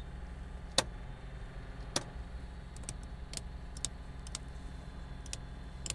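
A steady low motor hum starts abruptly and runs on evenly, with a few sharp ticks over it. The Cessna 401's fuel system is being run to test for fuel flow at the engine's injector lines, and no fuel pressure is reaching them.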